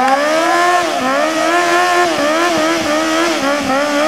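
Sport motorcycle engine held at high revs during a stationary burnout, the rear tyre spinning on the tarmac. The pitch wavers as the throttle is worked, and from about halfway it dips and climbs back about three times a second.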